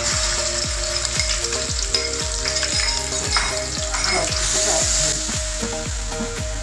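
Crushed onion and garlic sizzling as it hits hot oil with nigella seeds in an aluminium pot, stirred with a spatula. A steady hiss starts as the paste goes in and grows louder about two thirds of the way through.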